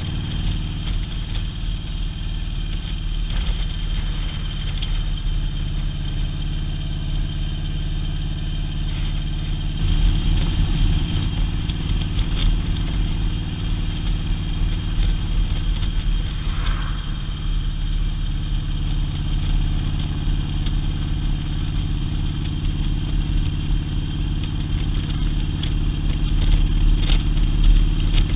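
Touring motorcycle engine running steadily while riding along the road, heard from the rider's seat as a low drone. It picks up slightly about ten seconds in and again near the end.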